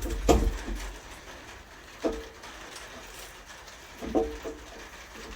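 A few light knocks and clunks of metal parts and bolts being handled, about two seconds apart, each with a short ring.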